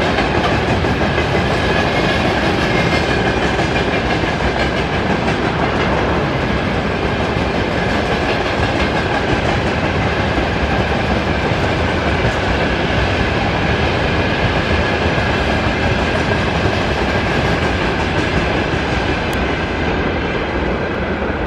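Freight train tank wagons rolling past on the rails: a steady rumble and rattle of wheels and wagons with a clickety-clack, over a thin steady high-pitched ring. It eases off slightly near the end.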